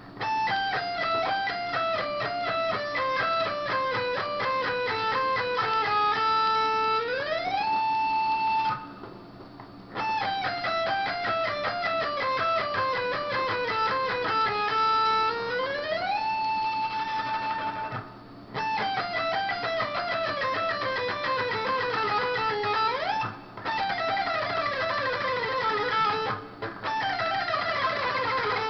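Electric guitar played on a single string: fast runs of picked notes that step steadily down the string, each phrase ending in a slide up the neck to a held note. The phrase repeats three times with short breaks, then further quick runs follow near the end.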